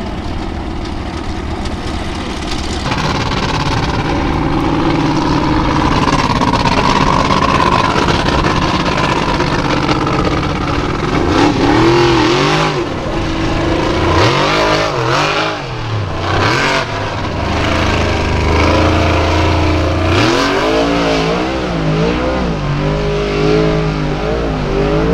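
Formula Offroad hillclimb car engines revving hard on a steep dirt climb. The pitch rises and falls in repeated quick bursts of throttle, most of them in the second half.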